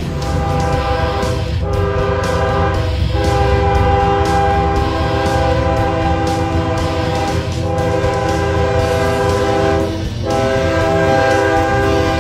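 A Ferromex diesel freight locomotive blows its multi-note air horn in a string of blasts with short breaks between them, the longest lasting about four seconds. The low rumble of the diesel engine and the train runs underneath as the locomotive approaches and passes.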